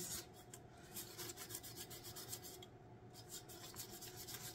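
Sandpaper rubbing lightly over the cured epoxy coat of a glittered stainless steel tumbler in quick, faint back-and-forth strokes, knocking down the small rough bumps ('pokies') left in the first coat.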